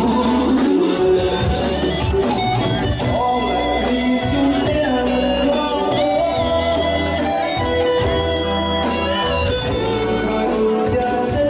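Live band music with guitar melody over a steady bass and beat.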